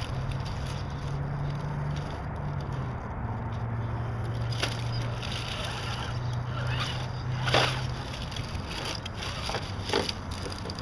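A radio-controlled scale rock crawler's electric motor and drivetrain run at crawling speed as a low steady hum, which fades about two-thirds of the way through. A few sharp knocks and scrapes of the truck on rock come in the second half.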